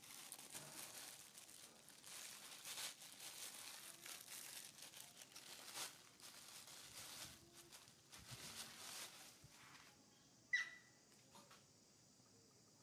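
Faint crinkly rustling, then one short high squeak sliding down in pitch about ten and a half seconds in.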